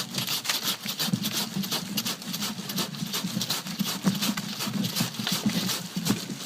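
Saw cutting through a thick, woody grapevine stem, rapid uneven strokes.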